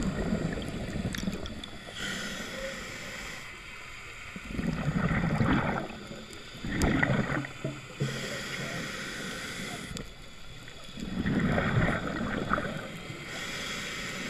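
Scuba diver breathing through a regulator underwater: four bursts of exhaled bubbles a few seconds apart, with a softer hiss of inhaling between them.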